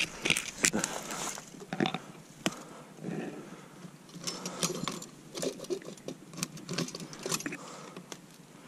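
Irregular sharp clicks, rustling and light metallic jangling from a steel sable trap being handled, busiest in the first couple of seconds.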